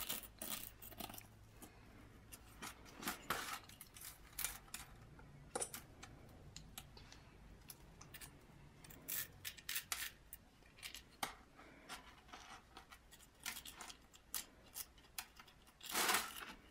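Faint, irregular scraping and clicking of a metal dental scraper picking at a plaster excavation block, one short scrape after another with a longer scrape near the end.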